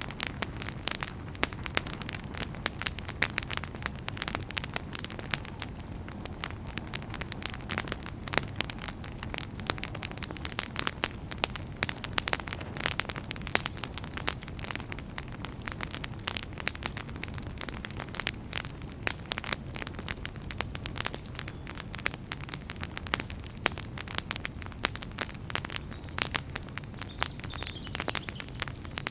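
Wood fire crackling steadily: many quick, irregular pops and snaps over a low, even rumble of flame.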